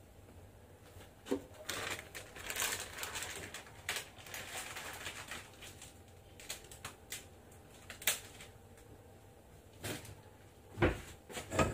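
Kitchen handling sounds: scattered light knocks and clicks of a bowl and utensils being moved and set down, with a stretch of rustling hiss about two to five seconds in.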